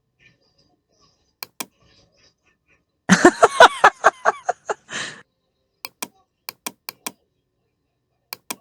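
A voice sound effect from an animation program's emotion set: a two-second burst of about ten rapid, repeated vocal syllables, like a laugh or sob. Sharp clicks, mostly in pairs, come before it and after it.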